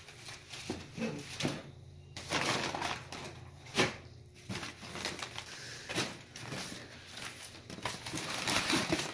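Brown kraft packing paper rustling and crumpling as hands dig through a cardboard shipping box, with irregular crackles and light knocks of the cardboard.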